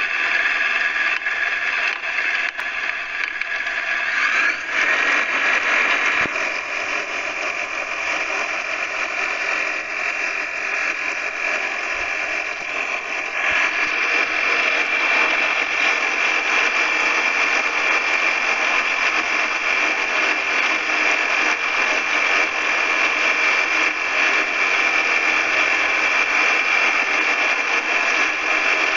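Ultralight aircraft engine and propeller running at high power through the takeoff roll and climb, mixed with steady wind noise. The sound shifts about five seconds in and grows louder about halfway through.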